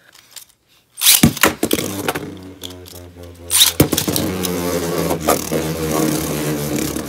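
Two Beyblade Burst spinning tops are launched into a clear plastic stadium, with a burst of sharp clacks about a second in as they land and collide. A loud clash comes a little before halfway, then a steady whirring hum as they spin.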